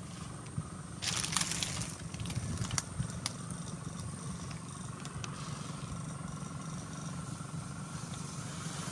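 Steady low electrical buzz of a battery-powered electrofishing rig working in the creek. About a second in there is a short burst of splashing and rustling through the grass, followed by a few sharp clicks.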